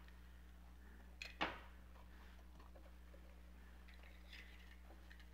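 Near silence with a steady low hum, broken about a second and a half in by two quick sharp clicks of a plastic toy being handled at its battery pack.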